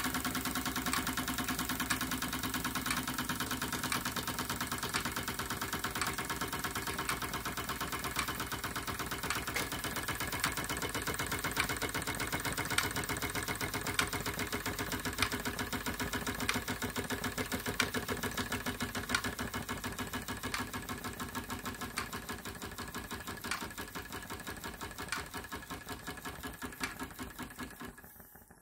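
Retrol SE-02 model steam engine running with a rapid, even mechanical beat while it drives a mini water pump. It grows quieter toward the end and dies away just before the end, as the spirit burner runs out of fuel.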